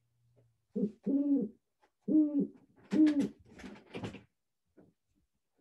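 An owl hooting: four low hoots, each rising and falling in pitch, about a second apart. A few short scuffing noises follow.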